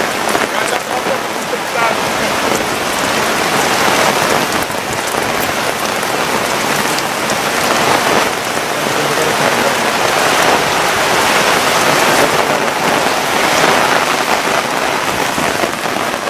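Heavy rain pouring down, a dense steady hiss that swells and eases slowly.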